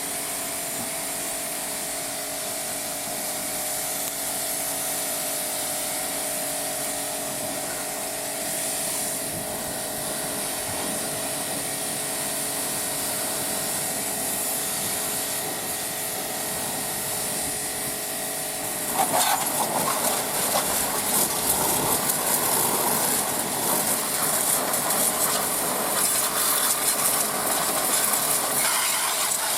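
High-pressure water washer running with a steady hiss and a hum of several steady tones. About two-thirds of the way through, the spray turns louder and rougher.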